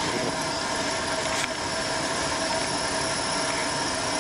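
Steady hum and hiss of running machinery, with a faint click about a second and a half in.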